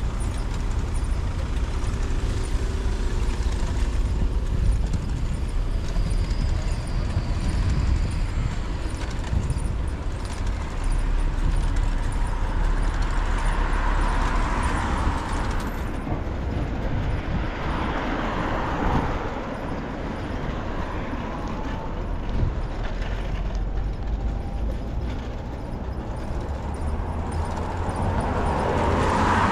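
Road traffic heard from a moving bicycle, over a steady low rumble of wind and road noise. Vehicles swell past and fade a few times.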